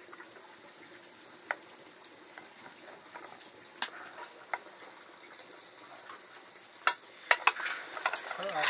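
Light clinks and taps of metal kitchenware, a steel plate and cup, scattered over a faint steady hiss, with a quicker run of sharper clinks near the end.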